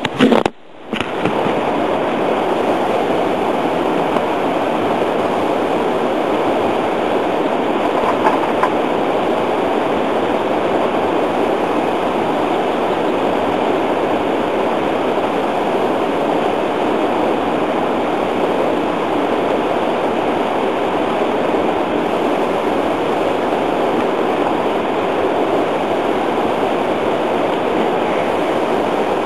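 Steady rushing of flowing river water, with a brief drop in level about half a second in.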